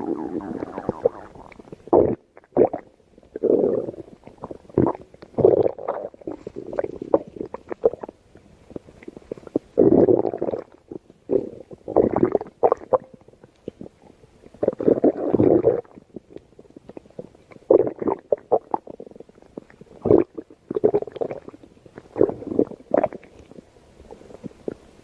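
Stomach growling: an irregular run of gurgles and rumbles, many short and a few longer ones lasting about a second.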